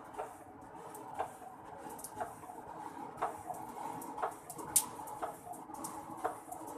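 Blacksmith's work on a hoe: light knocks repeating about once a second, with one sharper click near the middle.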